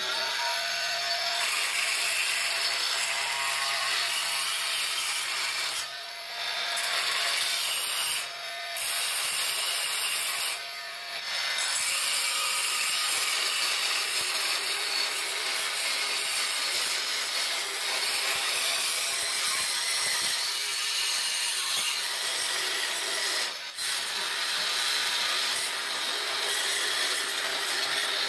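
Oscillating multi-tool with a thin diamond-grit segment blade grinding old grout out of the joints between ceramic floor tiles: a steady rasping buzz that dips briefly four times.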